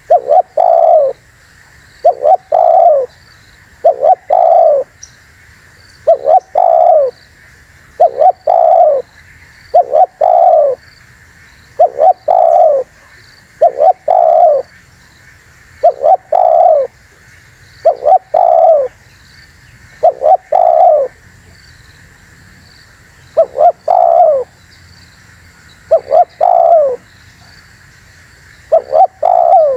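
Spotted dove cooing over and over, a two- to three-note phrase roughly every two seconds, with one longer pause about two-thirds of the way through. Faint high chirps of small birds sound behind it.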